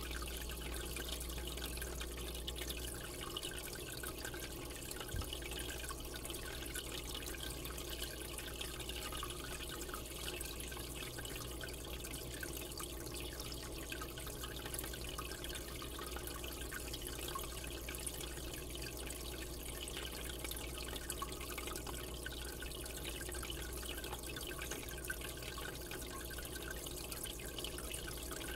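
Marine aquarium water circulating: a steady trickle and splash of the filter flow with small drips, over a low steady hum.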